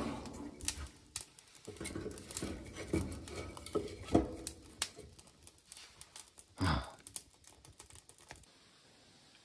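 Wood-burning sauna stove with its firebox door open: the fire crackles in quick irregular clicks while a split log is pushed in, with knocks of wood against wood and the stove. The loudest is a single thump about two-thirds of the way through.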